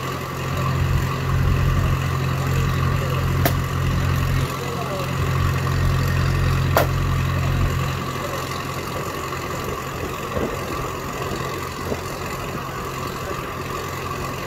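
Engine of a tracked log splitter running steadily. Its low note is heavier for about seven seconds from the start, with two sharp cracks in that stretch, then settles back to a lighter run.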